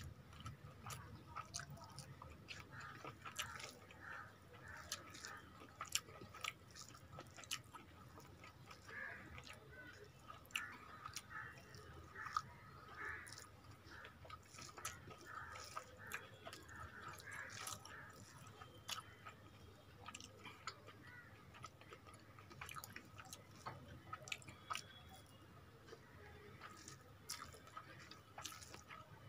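Faint close-miked chewing of rice, with many small wet mouth clicks.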